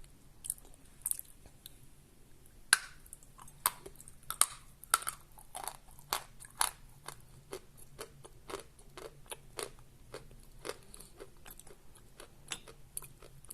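Close-miked chewing of a piece of natural Khrapovsky chalk: a string of crisp crunches and clicks, loudest and most frequent from about a third of the way in to the middle, then lighter and sparser as the chalk softens.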